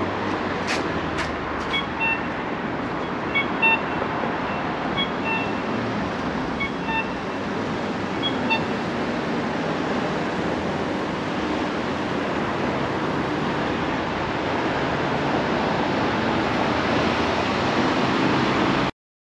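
Steady city street traffic noise, with scattered short high beeps in the first half and a few sharp clicks near the start. It cuts off suddenly near the end.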